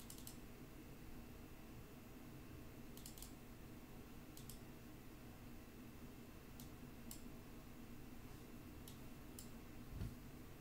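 Faint, scattered clicks of a computer mouse, single or in quick pairs every second or two, over a low steady room hum.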